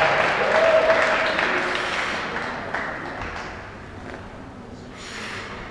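Audience applauding, the clapping dying away over a few seconds.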